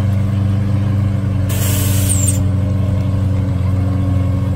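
A vehicle engine idling steadily. About a second and a half in comes a short hiss of compressed air venting, ending in a falling whistle.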